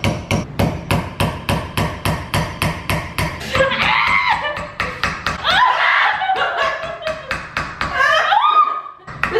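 A hammer rapidly tapping a nail set on a dime over a wine bottle's cork, about five light strikes a second, driving the cork down into the bottle. The tapping fades out a little past halfway, and a woman cries out in strain a few times.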